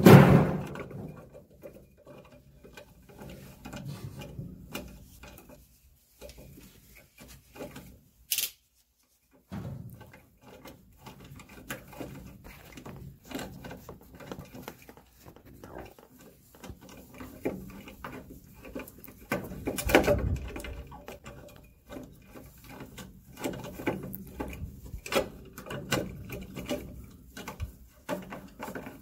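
Screwdriver with a socket extension turning the mounting screws of a furnace draft inducer motor: irregular small metal clicks, scrapes and taps of the tool on the screws and sheet-metal housing, with a loud knock at the start.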